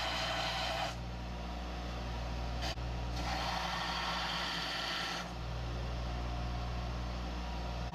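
Power sander running steadily while a knife handle is shaped on it: a constant motor hum, with a grinding hiss that rises twice as the handle is pressed against the abrasive, once at the start and again from about three to five seconds in.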